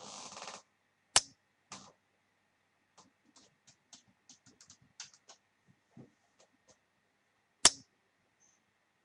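Sharp clicks, two about a second in and a louder one near the end, with a run of faint, irregular ticks between them and a brief hiss at the very start.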